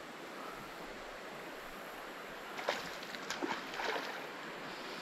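Steady rush of a flowing creek, with a hooked smallmouth bass splashing at the surface several times a little past the middle.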